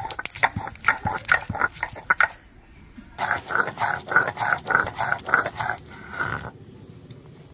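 A stone roller rasps back and forth on a grooved stone grinding slab (shil-nora) as raw peanuts are ground to a paste. The strokes come quick and rhythmic, break off briefly about two seconds in, then run on more densely before stopping near the end.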